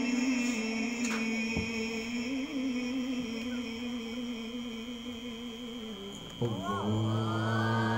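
A male qari reciting the Quran into a microphone in the melodic tilawah style, holding one long, slightly wavering note that slowly fades over about six seconds. About six and a half seconds in, a new, lower held tone starts abruptly, with higher wavering sounds above it.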